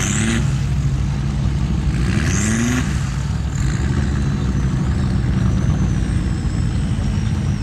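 Formula Offroad car's engine running with a steady low rumble, its revs rising briefly twice: at the very start and again around two seconds in.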